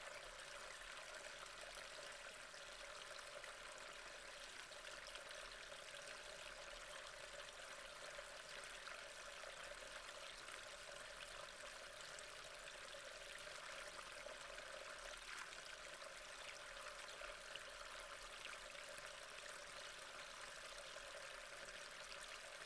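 Faint, steady hiss with no distinct events.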